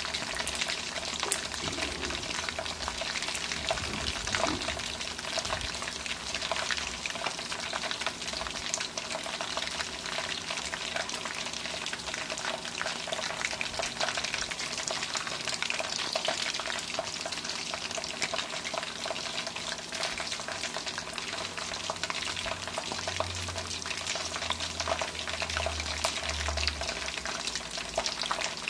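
A whole marinated chicken frying in hot oil in a wok: a steady sizzle with a dense crackle of popping oil.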